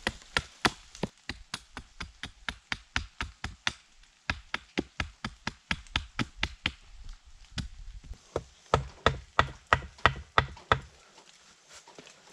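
Rapid sharp wooden knocks, about three or four a second, as a hatchet is driven along a thin wooden pole on a chopping block to split it. The knocks pause briefly about four seconds in and are loudest from about eight to eleven seconds.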